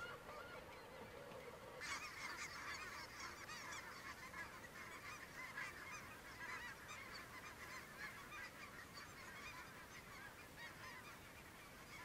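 A flock of snow geese calling: a faint, dense chorus of many overlapping calls that sets in abruptly about two seconds in.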